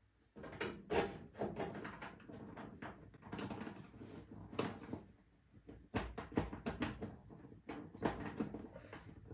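Irregular knocks, taps and scraping as a drain tube is shoved up through a small port in the bottom of a metal vending-machine cabinet, with rustling in between.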